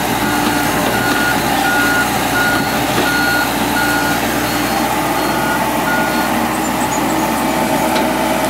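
A heavy vehicle's reversing alarm beeping steadily, a little under two beeps a second, over a running diesel engine; the beeps stop about six seconds in while the engine keeps running.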